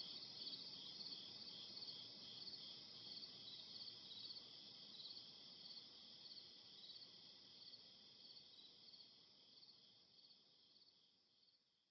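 Crickets chirping in a steady, high, pulsing trill that slowly fades away and stops just before the end.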